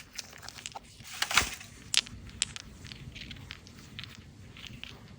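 Candy wrapper being handled and unwrapped: irregular crinkling and crackling with a few sharp ticks and one louder thump about a second and a half in.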